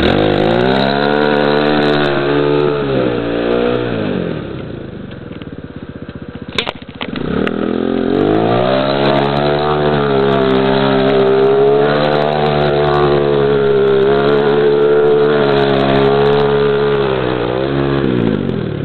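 A 250 cc quad's engine revs up hard and is held at high revs, then eases off around four seconds in. A sharp click comes near the middle, then the engine revs up again and holds steady and high for about ten seconds before dropping back near the end.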